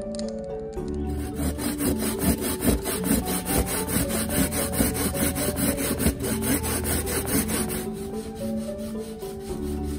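Young coconut being grated by hand on a flat metal grater: quick, regular rasping strokes that start about a second in and grow fainter near the end.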